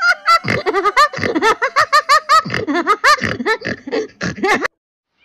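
Hearty laughter: a long run of quick 'ha-ha' bursts, each rising and falling in pitch, that cuts off abruptly about half a second before the end.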